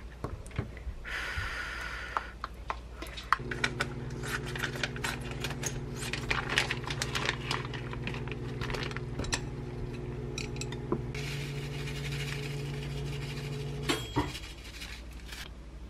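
Kitchen utensils clinking and scraping: a wooden spoon against a ceramic bowl and a glass container while food is stirred and seasoned. Under it a steady electrical hum from a kitchen appliance runs for about ten seconds and stops with a click.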